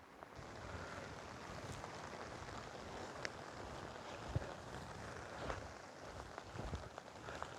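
Steady rain falling in the woods, with a few faint ticks and knocks.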